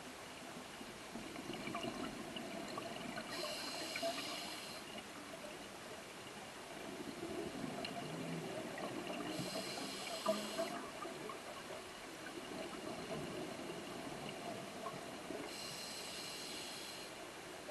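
Scuba diver breathing through a regulator underwater: a hiss of inhalation through the demand valve about every six seconds, each followed by the bubbling rush of exhaled air.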